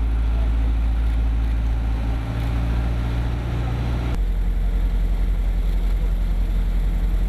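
A vehicle engine running steadily with a loud low rumble. The engine sound changes abruptly about four seconds in, its hum dropping to a different, lower pattern.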